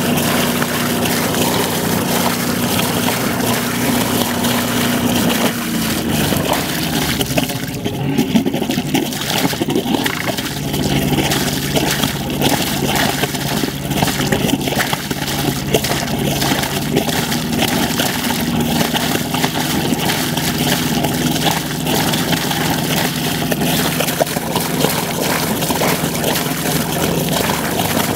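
Yanmar 2YM15 two-cylinder marine diesel running, its wet exhaust spurting cooling water out of the hull outlet with a steady splashing and gurgling. The engine note shifts lower between about six and ten seconds in, then holds steady.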